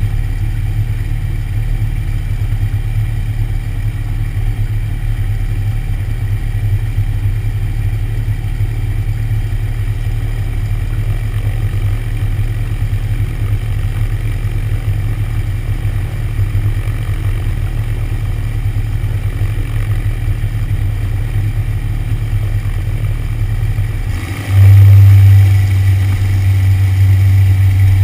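Light airplane's piston engine and propeller running at low power while taxiing, a low pulsing drone. About 24 seconds in the engine is throttled up: the sound jumps louder and turns into a steadier, smoother drone.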